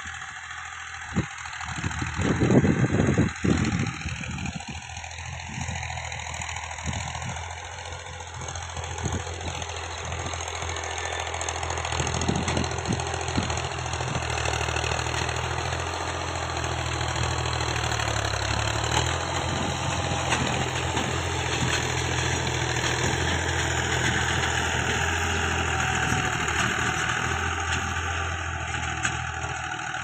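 Fiat Al-Ghazi tractor's diesel engine running steadily as it pulls a chisel plough through the soil, growing louder as it draws nearer. A brief louder rumble breaks in about two to four seconds in.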